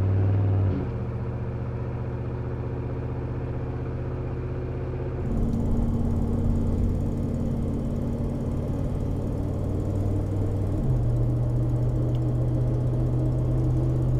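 Ford F-150's 5.4L V8 running through a Rough Country cat-back dual exhaust with black tips at a steady cruising engine speed. It is heard first at the exhaust tip from outside the moving truck, then from about five seconds in from inside the cab, holding near 2,000 rpm.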